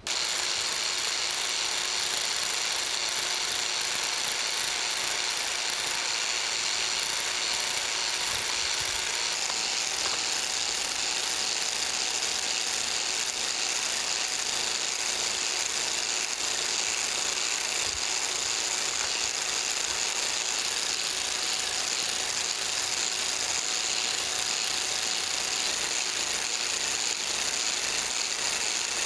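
Biax power scraper running steadily, its blade chattering rapidly as it cuts a crosshatch pass across the cast iron cross slide. This is the roughing stage, taking down the high spots that showed up in the contact pattern.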